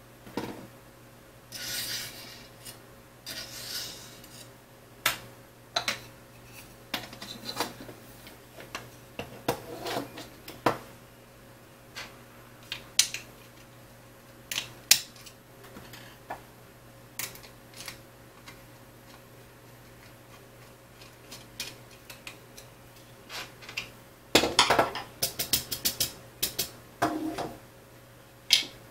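Small metal screws and T-slot nuts clinking while an aluminium extrusion and 3D-printed plastic parts are handled on a wooden table: scattered clicks and a few short scrapes, with a busier run of clicks near the end.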